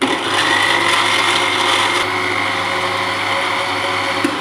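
Electric countertop blender running at full speed, blending yogurt and milk with ice cubes into lassi: a loud, steady whirr. Near the end there is a click as it begins to wind down.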